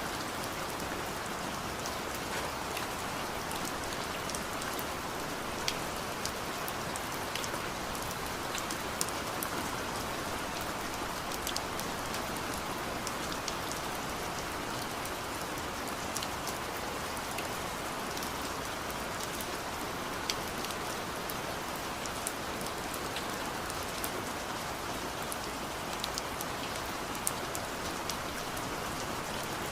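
Steady rain falling, an even hiss with scattered sharper ticks of individual drops hitting a surface.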